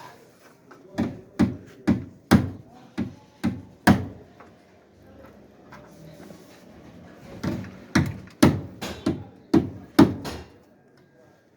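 A series of sharp knocks in two runs, about seven close together, then a pause of a few seconds, then about six more.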